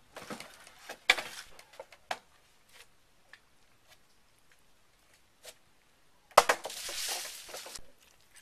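Wading sounds in shallow muddy water: scattered sloshing and squelching with sharp knocks about a second in and again a second later, then a louder rush of noise lasting over a second near the end.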